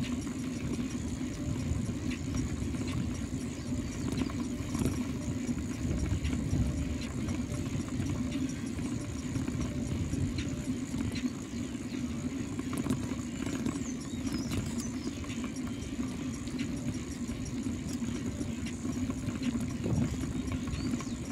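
Steady riding noise from a bicycle rolling along an asphalt road: wind rumbling on the microphone over the hum of the tyres.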